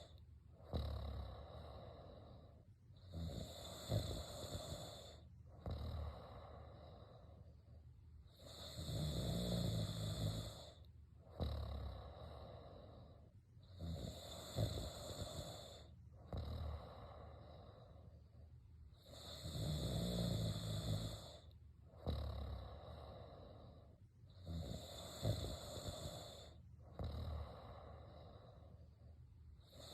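A person snoring in a steady rhythm, about one breath every five to six seconds. Each cycle has a louder snore and a softer breath, with short pauses between them.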